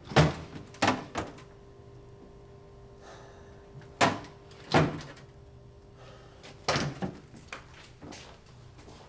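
Refrigerator door opened and shut, with sharp knocks and thuds: three close together at the start, two around four seconds in, and a pair near seven seconds.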